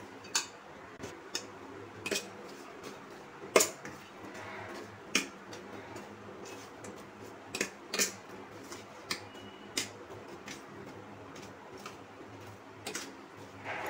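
Steel spoon stirring a dry, crumbly mixture of ground coriander, sugar and fox nuts in a stainless steel plate, scraping and clinking against the metal in irregular sharp taps.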